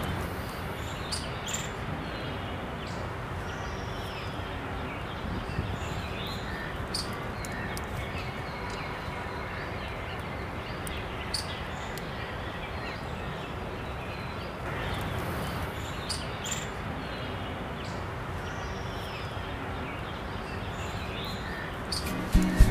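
Outdoor nature ambience: a steady background hiss with scattered short bird chirps.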